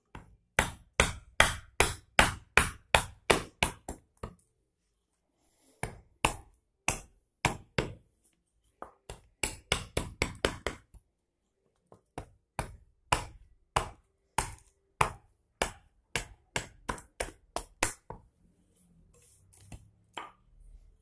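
Small carving hatchet chopping into a boxwood spoon blank held on a stump: quick sharp strikes, about three a second, in runs with short pauses, as the bowl end of the spoon is roughed out.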